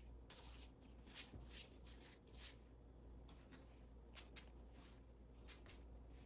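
Faint, short hissing rustles, a dozen or so, as hair is worked through by hand while a styling spray is applied.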